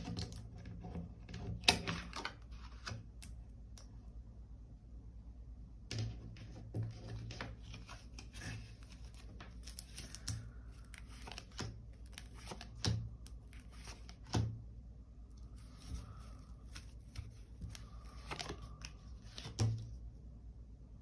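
Tarot cards being handled: shuffled, slid and laid down on the table, giving irregular soft taps, clicks and rustles over a low steady hum.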